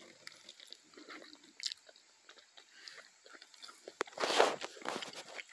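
Close-up eating sounds of a mouthful of spaghetti being bitten and chewed: soft wet chewing with small clicks and smacks, and one loud breathy rush about four seconds in.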